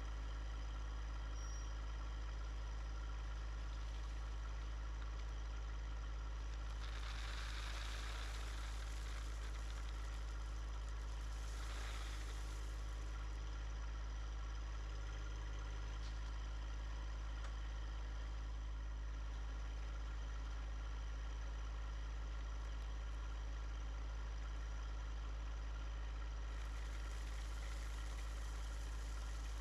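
John Deere 1025R compact tractor's three-cylinder diesel engine running at a steady speed, with a few short noisy rushes over the hum.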